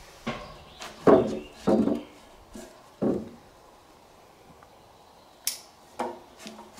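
A wooden lumber frame being handled, with a few dull knocks as it is moved and set down. A rope is then tied to it, and a sharp click comes about five and a half seconds in.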